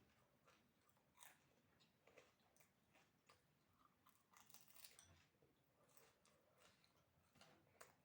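Faint, irregular crunching and chewing of fuchka (panipuri), the crisp fried puri shells being bitten and chewed.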